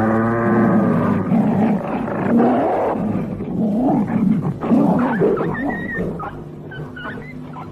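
Cartoon wolf pack growling and snarling, the cries wavering up and down in pitch, then dying away near the end.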